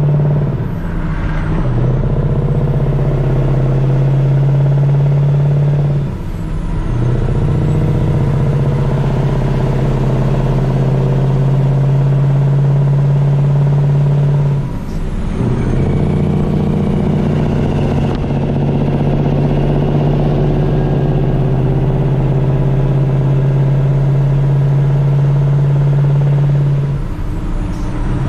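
Truck engine running steadily under load with a low drone, dropping off briefly three times and picking back up at the same pitch.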